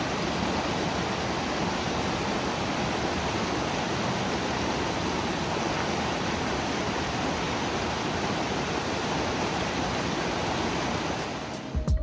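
Small mountain creek rushing and cascading over boulders: a steady, unbroken rush of white water.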